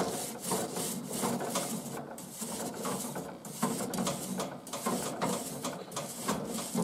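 Metal grill tongs raking and poking through burning wood on a grill grate, a run of uneven scrapes and clacks of metal on metal and wood as the fire is stirred up.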